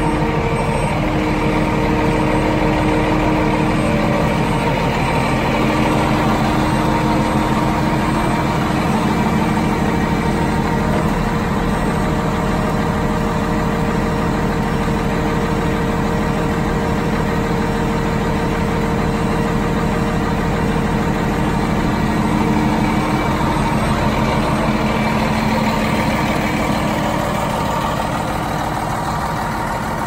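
2004 International 5500i concrete mixer truck's diesel engine idling steadily.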